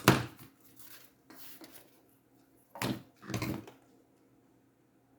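Cardboard pieces being handled and knocked against each other: a sharp knock at the start, then two rustling clatters about three seconds in.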